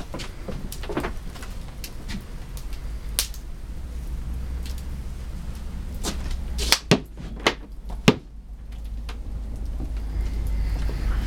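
Scattered light clicks over a steady low rumble, with a few sharp knocks close together about seven to eight seconds in.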